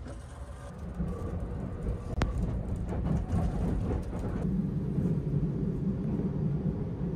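Steady low rumble of the Sunrise Express sleeper train running, heard from inside the carriage, growing louder about a second in, with one sharp click a little over two seconds in.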